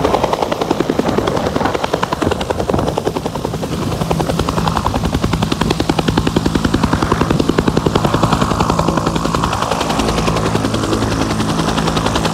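Bell UH-1 'Huey' helicopter running on the ground, its two-bladed main rotor turning with a fast, steady chop over a continuous engine drone.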